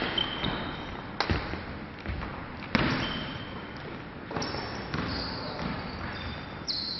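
Badminton rally: racket strings hitting the shuttlecock with sharp smacks about every second or so, and sneakers squeaking briefly on the wooden court floor, echoing in a large sports hall.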